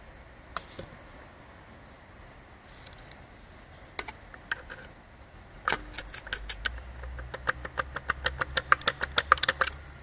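A few scattered sharp clicks, then from about halfway a quick run of metallic clicks, about six a second, as the wheel of a failed Garrett GT2256V turbocharger is worked round in its housing with a rod.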